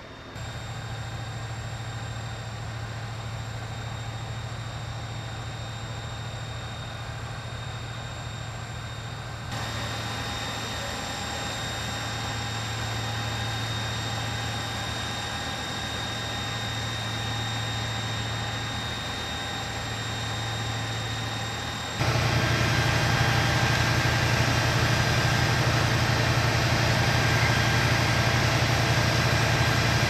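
Engines of parked emergency vehicles idling with a steady low hum, stepping louder about three-quarters of the way through.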